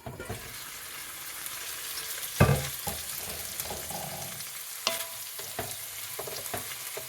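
Food sizzling in a cooking pot while it is stirred. A utensil clinks and knocks against the pot, with one loud knock about two and a half seconds in and a run of short clinks in the second half.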